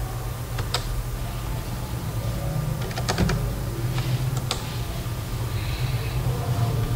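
A few computer keyboard keystrokes, sharp clicks with a quick cluster about three seconds in, over a steady low hum.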